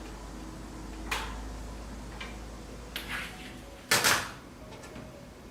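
Handling knocks and clatters of a handheld electric branding iron and the piece of wood being stamped: four short knocks, the loudest about four seconds in, over a low hum that stops at that loudest knock.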